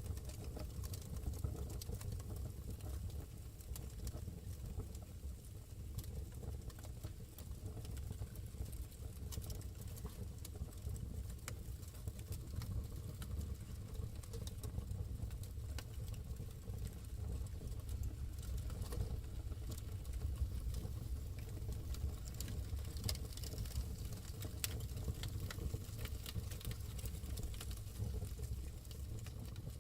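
Wood fire burning in a fireplace: a steady low rumble of the flames with irregular crackles and pops scattered throughout.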